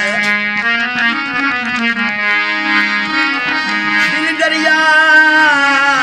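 Hand-pumped harmonium playing a melody over a held low drone, its reedy notes steady and continuous. A man's voice sings along in the second half, with wavering, bending notes.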